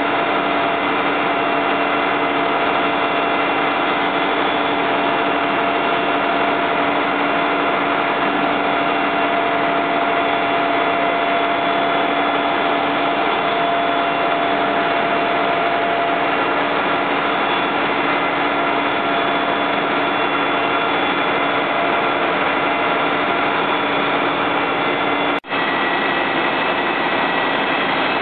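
Fire engines' diesel engines running steadily, several steady whining tones over a continuous drone. The sound drops out for an instant near the end.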